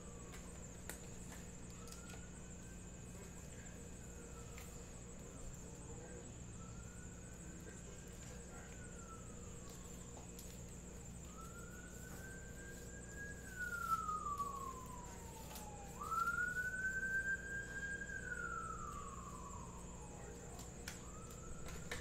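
Emergency vehicle siren wailing, its pitch slowly rising and falling about every four seconds. It grows louder past the middle and fades near the end.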